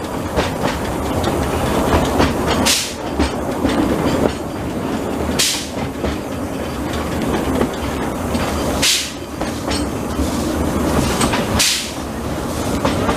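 Narrow-gauge train running slowly, heard from an open carriage right behind the locomotive: a steady rumble and rattle of wheels on rail with clickety-clack over the joints, and a short hiss about every three seconds.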